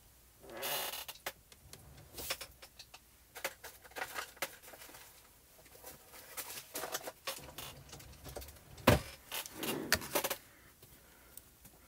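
Craft supplies being handled on a desk: paper and a paper coffee filter rustling, with scattered small clicks and taps and one sharp knock about nine seconds in.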